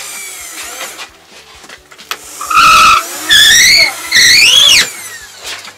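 Cordless drill-driver running in three short bursts, about half a second each, as it drives screws into wooden formwork boards. Its whine holds, wavers and rises with the load, and the last burst drops away quickly when the trigger is released.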